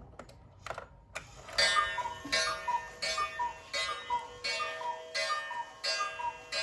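Regula cuckoo clock striking the hour. A few clicks of the striking mechanism come first, then from about a second and a half in the cuckoo calls its falling two-note whistle, each call starting with a ringing strike. About seven calls come in even succession, one every three-quarters of a second or so, over the clock's ticking.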